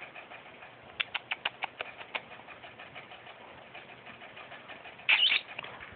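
A quick run of about eight short, high kissy squeaks made with the lips to call a pet rat, about a second in, then a brief louder rasp near the end.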